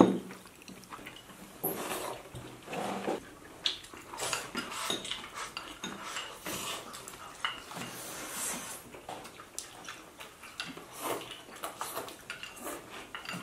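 Chopsticks clicking and scraping against porcelain rice bowls and plates as several people eat at a table: scattered, irregular light clinks, with one louder knock right at the start.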